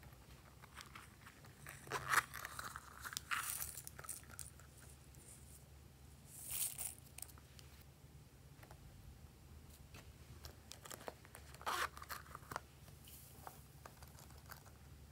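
Short scratchy, crinkly rustles, a few seconds apart, as a small silicone pouch is handled and sequins and glitter are poured from it onto slime.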